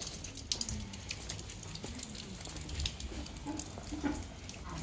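Light rain: scattered raindrops ticking irregularly on an umbrella over a steady wet hiss.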